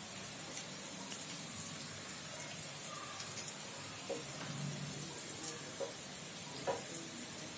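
Potato pieces shallow-frying in oil in a pan: a steady sizzle with scattered crackles and a few sharp clicks.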